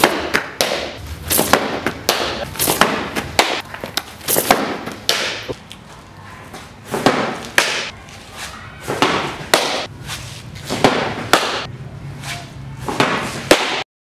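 Softball pitching practice: a string of sharp pops and thuds, irregular and often two or three a second, as the ball is thrown and caught in a catcher's mitt.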